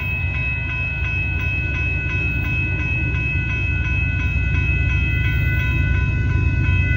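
Railroad crossing warning bell ringing steadily, about two strokes a second, over a low rumble from the approaching train that slowly grows louder.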